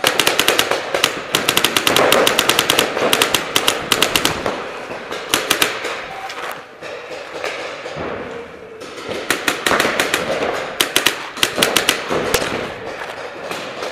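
Paintball markers firing fast strings of shots in a large hall, several shots a second, with a quieter lull in the middle. The nearest shots come from a Dangerous Power FX marker set to true semi-automatic.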